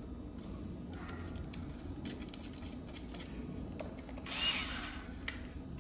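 Cordless drill/driver run in one short burst about four seconds in, its motor whine rising and falling, with faint handling clicks before it.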